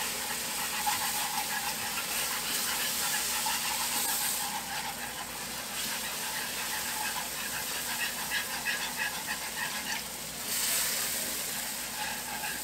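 Cold half-and-half hissing and sizzling as it is poured a little at a time into a hot butter-and-flour roux in a pan, while a whisk stirs it in. The hiss swells about four seconds in and again near the end.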